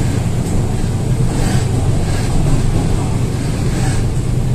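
MTR K-stock train running through a tunnel, heard from inside the car: a steady low rumble of wheels, motors and track, with a faint high tone above it.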